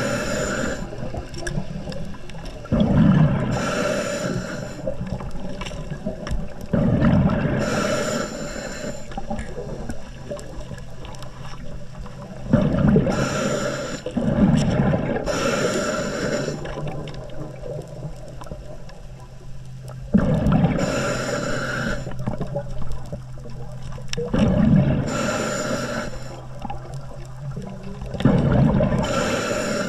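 Scuba diver breathing through a regulator underwater: about every four seconds a hissing breath through the regulator and a rumbling rush of exhaled bubbles, over a faint steady low hum.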